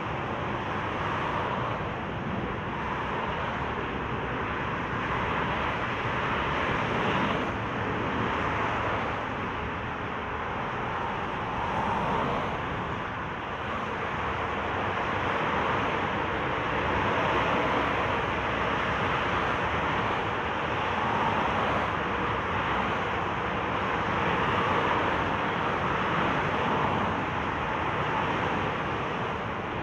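Steady noise of dense motorway traffic: tyres and engines of many cars and lorries passing at speed, swelling and easing gently every few seconds as vehicles go by.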